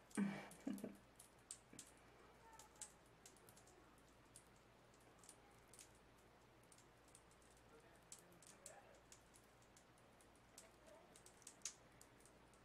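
Bath bomb fizzing in bath water: faint, irregular crackling and tiny pops of bursting bubbles. A brief voice sound comes right at the start.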